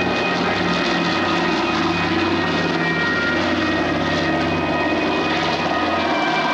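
The PBY Catalina's twin Pratt & Whitney R-1830 radial engines running with a steady, even propeller drone.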